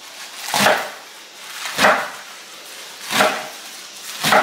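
Large kitchen knife chopping a pile of Swiss chard leaves on a wooden cutting board: four slow, even strokes about a second and a quarter apart, each a brief crunch through the leaves that ends on the board.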